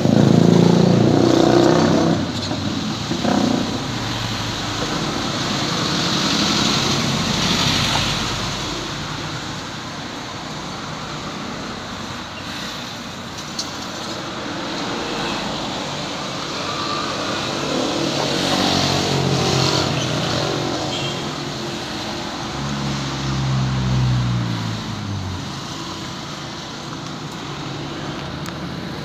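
Street traffic: cars and motorcycles passing, their noise swelling and fading several times, loudest in the first couple of seconds. About 22 seconds in, one engine passes with its pitch dropping.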